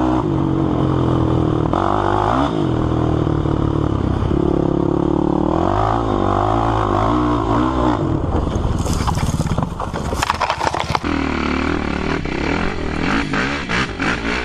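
Sport quad's engine running hard, its pitch rising and falling over and over as the throttle is worked through the ride. From about nine seconds in come a couple of seconds of sharp clattering and rattling over the engine.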